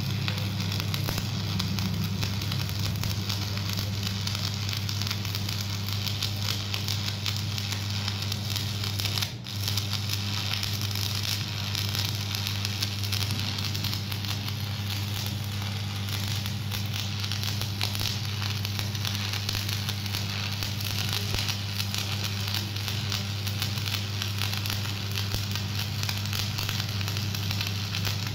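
Stick (shielded metal arc) welding arc crackling and sizzling steadily as an electrode burns along a steel pipe joint, over a steady low hum. The crackle breaks off briefly about nine seconds in and resumes at once.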